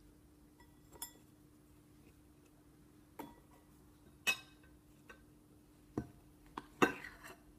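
Biscuits being laid on a plate: about six light, scattered clicks and clinks, over a faint steady hum.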